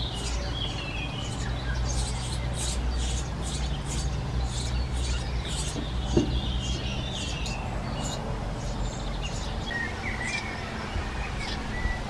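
Eurasian tree sparrow nestlings begging from inside a nest box, a run of short, high-pitched chirps at about three or four a second that thin out later on, over a steady low rumble.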